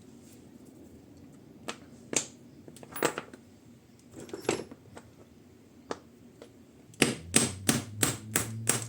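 Scattered sharp clicks of small metal parts being handled, then a quick run of about six sharp taps near the end, about three a second: a retaining pin in a blaster's bolt and nozzle assembly being knocked out with a punch.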